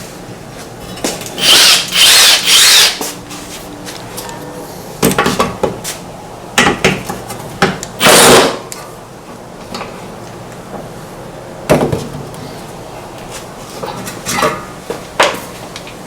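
Short, irregular bursts of tool noise and clattering as a push mower's recoil starter is worked apart. The loudest bursts come as a quick run of three about two seconds in and once about eight seconds in.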